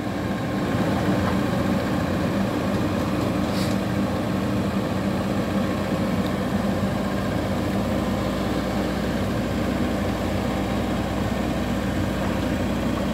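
Diesel engine of a Komatsu PC78US hydraulic excavator running steadily while the machine tracks and works its boom.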